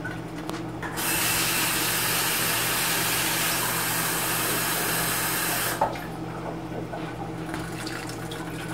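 Kitchen tap running steadily for about five seconds, filling a glass with water to top up the bean pot, then shut off abruptly.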